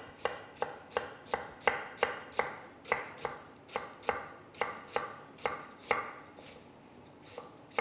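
Kitchen knife slicing a peeled pear thinly on a wooden cutting board: the blade knocks on the board in a steady rhythm of about three strokes a second, fainter and sparser near the end.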